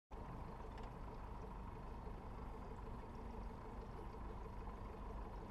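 A RIB's outboard motor running steadily at low speed, a low even hum with a faint regular pulse.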